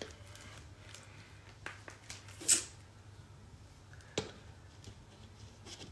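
Large plastic water bottle being handled and its cap twisted open: faint crackles of the plastic, a louder crinkle about two and a half seconds in, and a sharp click about four seconds in.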